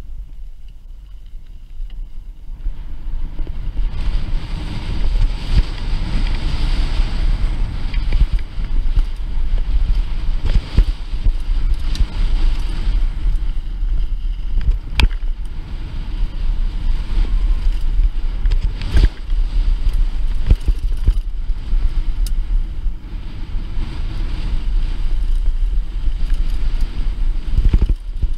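Mountain bike descending a dry dirt trail: wind buffeting the on-bike camera's microphone over the rumble of tyres rolling on loose dirt and gravel, with a few sharp knocks as the bike jolts over bumps and rocks. The noise is lighter for the first couple of seconds and grows louder from about three seconds in as the bike picks up speed.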